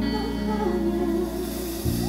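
Live band music: a held chord with sustained bass notes and a slow melody line above it. The chord changes just before the end.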